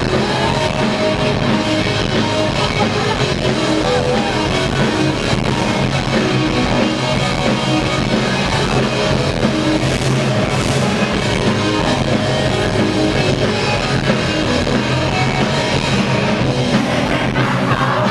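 Live rock band playing loud and steady, with electric guitars, keyboard and drums.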